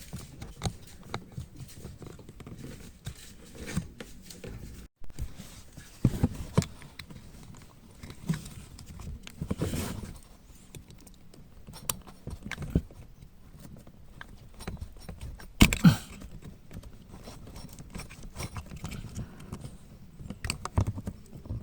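Hands working behind a car's dashboard to remove the cabin blower-motor resistor: scattered small clicks, knocks and rattles of plastic and wiring as the connector is unclipped and the part is worked out, with one sharper click about two-thirds of the way through.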